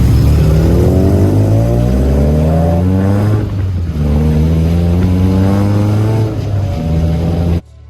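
2006 Acura RSX Type S's 2.0-litre four-cylinder running through a Skunk2 Alpha header and Invidia N1 exhaust, accelerating hard: the pitch climbs, drops at two upshifts, then climbs again. It cuts off suddenly near the end.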